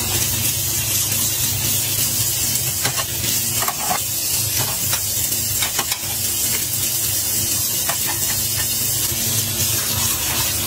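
Kitchen tap running a steady stream of water into the sink while ceramic bowls are rinsed under it, with a few light clinks and knocks as the bowls are handled.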